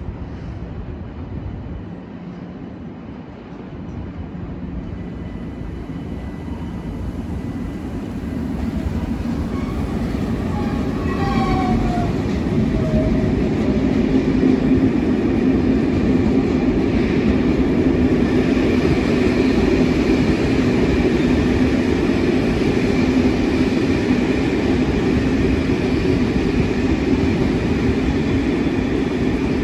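A TER train of Corail coaches coming in on the nearby track. It grows steadily louder over the first dozen seconds, with a short falling squeal about 11 seconds in, then holds a steady, loud rumble and hum.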